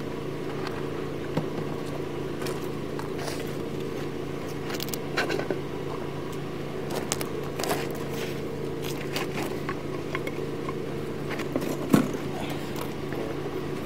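A steady mechanical hum, with scattered light clicks and a sharper knock about twelve seconds in.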